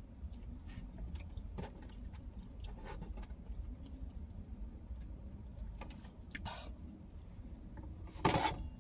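Close-miked chewing and small mouth clicks of a person eating pizza, over a steady low rumble. Near the end there is one louder, fuller sound lasting about half a second.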